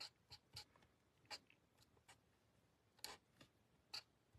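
Faint, short scratches of a marker tip on cardstock, about half a dozen scattered over a few seconds, as small stamped images are coloured in.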